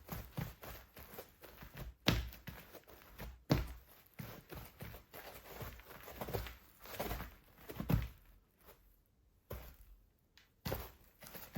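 Football boots stepping and running with touches and kicks of a football: irregular thuds and scuffs, with sharper strikes about 2, 3.5 and 8 seconds in.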